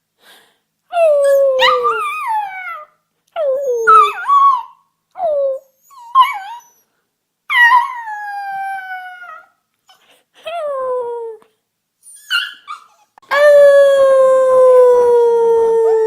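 Puppy howling: a series of short howls, each falling in pitch, with pauses between them, then one long high howl held for several seconds near the end, sliding slowly downward.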